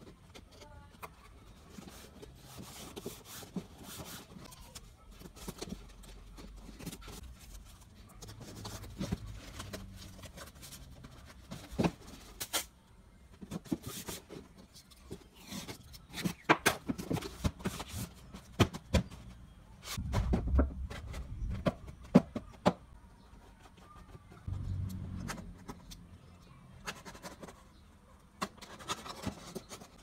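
Cardboard being handled, taped and cut by hand: scattered sharp clicks, taps and scrapes, busiest in the middle. There is also a low rumble twice, around two-thirds and five-sixths of the way through.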